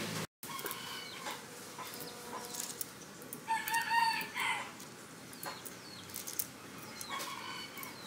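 A rooster crowing once, about a second long, midway through, with a few shorter calls and faint clicks around it.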